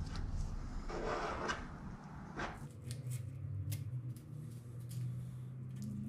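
Plastic spreader scraping body-filler glaze across a car's deck lid, with a rough scrape about a second in. Partway through the sound changes to a steady low hum with scattered light clicks and crinkles.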